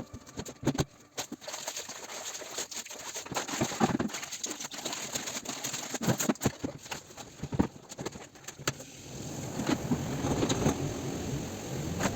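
Scattered sharp clicks and knocks, with low repeated cooing calls that grow stronger in the last few seconds.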